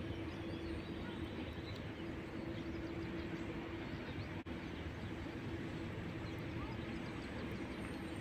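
Steady outdoor background noise with a constant low hum, and faint bird chirps here and there. The sound drops out for an instant about halfway through.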